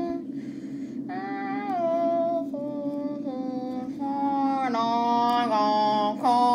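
A child singing a wordless tune in a high voice: held notes that slide from one pitch to the next in short phrases, louder in the second half. A steady low hum runs underneath.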